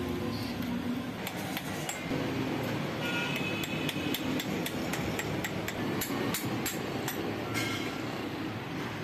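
Hammer tapping steel transformer laminations tight into the core stack of a battery-charger transformer: a string of sharp metallic knocks, a few a second, some with a short ring.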